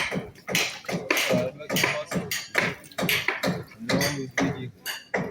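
Short rhythmic vocal sounds, like grunting or beatbox-style breaths and calls, mixed with sharp clicks or knocks about twice a second.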